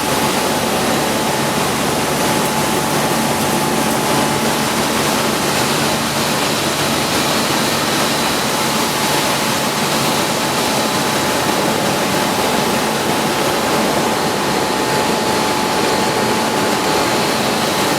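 Corn milling plant machinery running steadily: a loud, even rushing noise with a steady high whine through it.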